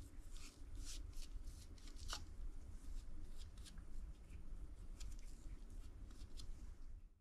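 Gloved fingers spreading Red Line assembly lube onto engine main bearing shells, making irregular soft scuffs and light ticks over a low steady hum.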